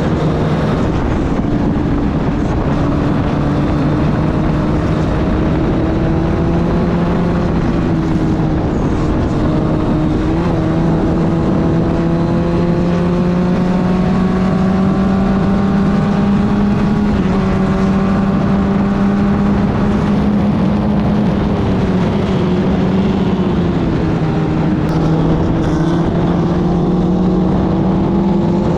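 Club Ford (Formula Ford) race car engine running hard at racing speed. Its pitch climbs steadily and drops back several times, as with upshifts and braking for corners.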